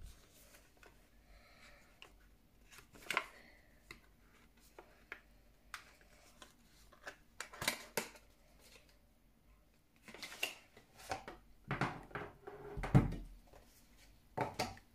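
Album packaging being handled: a cardboard sleeve rustling and scraping, and a metal tin case being slid out and set down, with scattered taps and clicks. The loudest knock, with a low thud, comes about thirteen seconds in.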